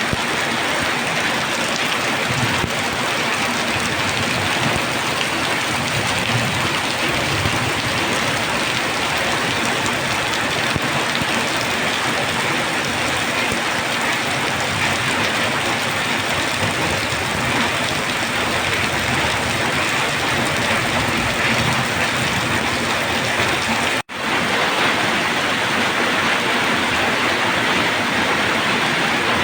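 Steady rain falling, a dense, even hiss with no let-up. About 24 seconds in it cuts out for an instant and comes straight back.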